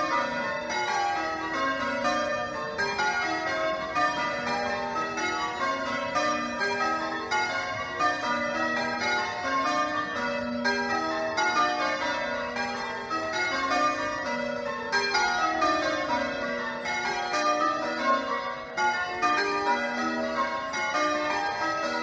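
A ring of eight church bells being change-rung: a continuous, even stream of strikes in shifting order, falling in repeated runs from the highest bell to the lowest. The back six are Warner bells of 1913, restored by Whitechapel, and the two trebles are new.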